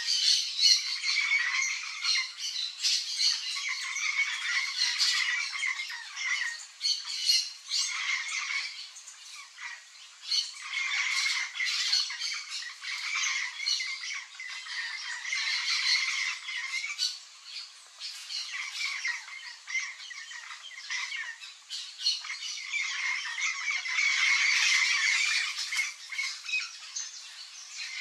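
Yellow-faced parrots (Alipiopsitta xanthops) squawking repeatedly in a rasping series, with short lulls about ten and eighteen seconds in.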